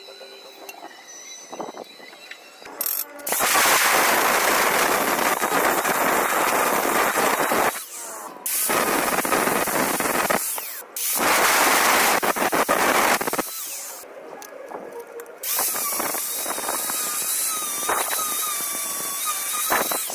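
Electric power tool working metal, run in several bursts of two to four seconds with short stops. Near the end it runs with a whining tone that wavers slightly in pitch as the load changes.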